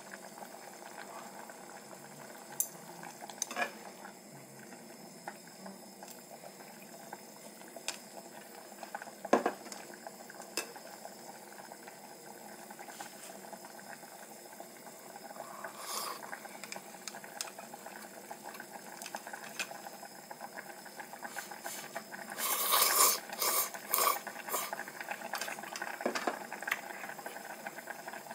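Pot of noodle soup simmering on a tabletop gas burner, with scattered clicks of chopsticks and tableware against a bowl. About 22 seconds in comes a short cluster of loud, hissy mouth sounds of eating hot noodles.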